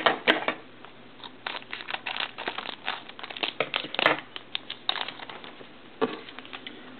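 Yu-Gi-Oh! booster pack wrapper being crinkled and torn open by hand, then the cards handled and flicked through: a run of short, irregular crackles and rustles.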